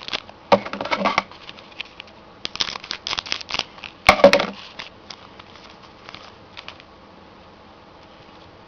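Trading-card packs and cards being handled: bursts of crinkling and rustling in the first half, then only a few faint taps.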